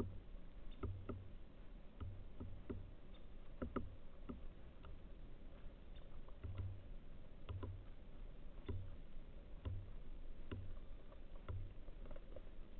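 Birds pecking and tapping at a feeder: irregular light ticks, about one a second, some with a soft low thump.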